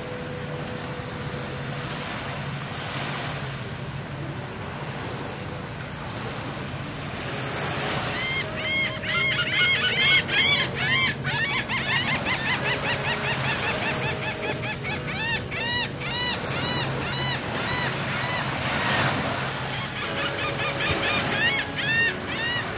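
Gentle surf washing in steadily, joined about eight seconds in by a flock of birds calling in quick, overlapping, arching notes that carry on until near the end.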